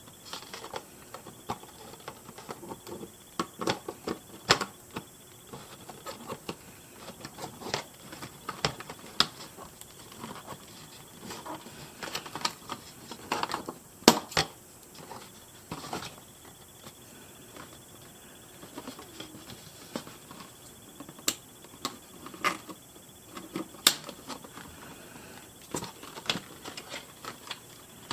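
Hands working at a doll's box packaging, freeing the doll from the plastic straps that hold her in place: irregular small clicks, snips and scratchy rustles of plastic and cardboard, with a sharper click about halfway through.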